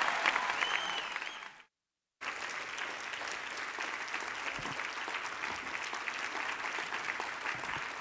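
Audience applause that fades out into a brief dead silence about a second and a half in, then steady applause from a live audience for the rest.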